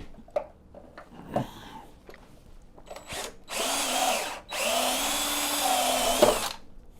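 A small electric power-tool motor running with a steady whine in two runs, a short one of about a second and then one of about two seconds, with a few faint knocks before them.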